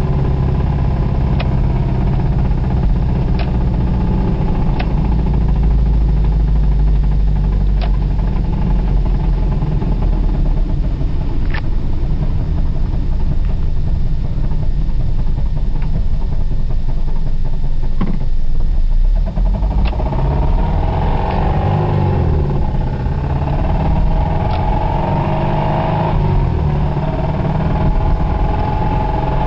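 Toyota Celica ST's four-cylinder engine running with a bad rod bearing, holding steady at first, then revved up and down several times in the second half. A few isolated sharp clicks are heard in the first dozen seconds.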